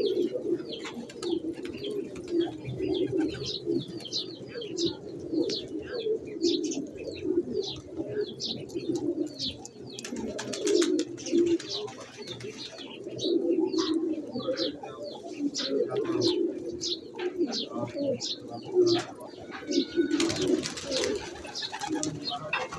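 Pigeons cooing continuously in a low murmur, with many quick high chirps over the top. A brief rush of noise comes near the end.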